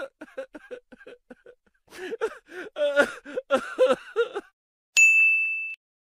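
A crying sound effect: a person sobbing in short, rapid gasps, then crying with a wavering voice. A single bright ding sounds near the end.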